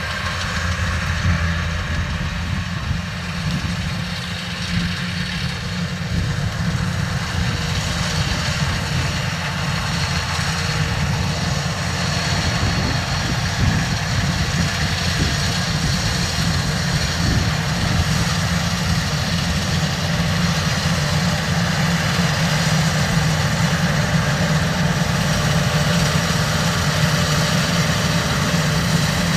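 Kubota DC-93 combine harvester running steadily, its diesel engine and machinery making a continuous low drone with a broad mechanical rush above it.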